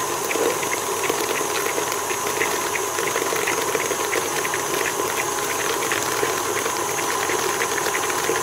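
KitchenAid stand mixer running steadily, its beater turning through a thick margarine-and-sugar cream in the steel bowl: an even motor hum with many faint ticks throughout.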